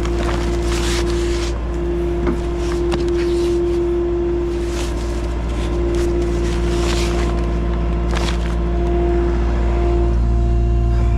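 Engine of a farm loader with pallet forks running steadily, a low drone with a steady whine over it, interrupted by several brief bursts of hiss.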